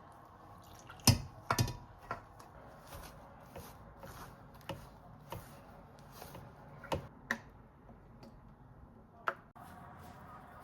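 Irregular sharp knocks and clicks of kitchen utensils and dishes being handled, the loudest about a second in, with fainter ones scattered after.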